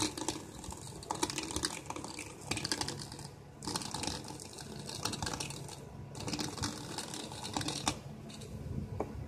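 Dense crackling and clicking from the small circuit board's RCA jacks and plugged-in cable being handled, coming in stretches of a second or two with short gaps.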